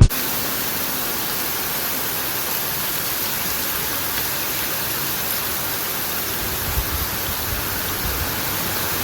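Steady, even hiss of heavy storm rain pouring down, with no break or change.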